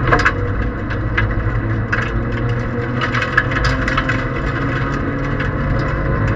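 Toyota Aygo 1.0 rally car heard from inside the cabin at speed on gravel: the three-cylinder engine runs hard under steady tyre and road noise, with loose stones clicking and rattling against the underbody every so often.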